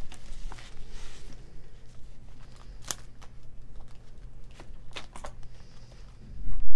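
Handling of a cash budget binder and its plastic zipper envelopes: rustling and light handling with a few sharp clicks, about three and five seconds in. A loud low thump near the end.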